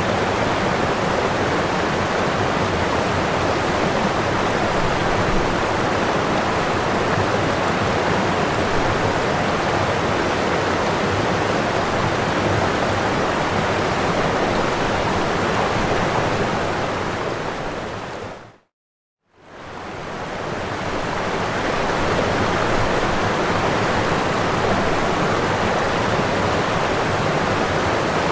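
Waterfall rushing in a steady, even roar of falling water. About two-thirds of the way in it fades out to a moment of complete silence, then fades back in.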